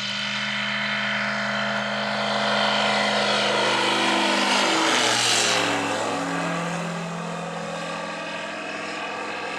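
Yastreb light agricultural aircraft making a low pass: its propeller engine drone grows louder, drops in pitch as the plane goes by about five seconds in, then fades off.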